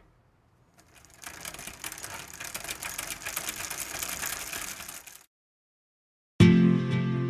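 A small machine whirring with a rattle, typical of an electric meat grinder's motor and gears running, fades in and then cuts off abruptly. After a short silence, strummed acoustic guitar music starts loudly near the end.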